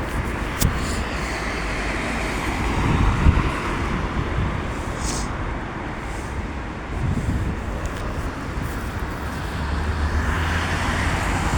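Road traffic: steady low engine rumble of passing vehicles, with a few knocks. A heavier engine drone builds near the end as a large vehicle comes close.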